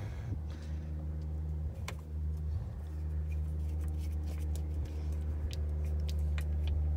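A steady low machine hum, with scattered light clicks and taps from hand work as screws are threaded into a jet ski's carburetor assembly.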